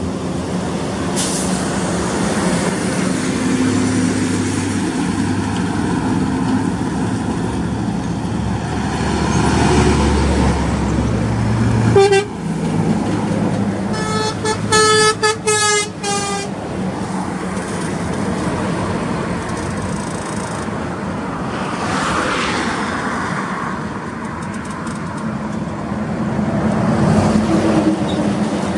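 Volvo FH 540 and Scania R540 heavy diesel trucks running past at road speed, their engines swelling as they close in. An air horn is blown once about twelve seconds in, then sounded in a quick series of toots a couple of seconds later.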